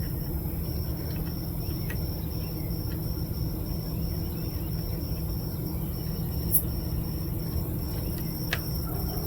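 Steady low background rumble with a constant high-pitched whine over it, and a few light clicks as a wiring plug is fitted onto the diesel heater's circuit board.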